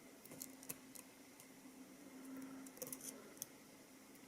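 Faint, sharp metallic clicks and ticks of a lock pick working the pins of a Mul-T-Lock MT5+ high-security cylinder while it sits in a false set. A small cluster of clicks comes about three seconds in, over a faint steady hum.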